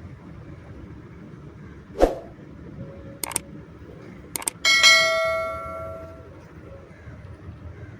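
A dull knock and a few sharp metal clicks, then a strike on steel that rings with a clear, bell-like metallic tone, fading over about a second and a half.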